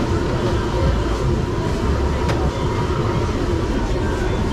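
Busy street-food night-market ambience: a steady low rumble of stalls and passing crowd, with a faint steady hum above it and indistinct chatter.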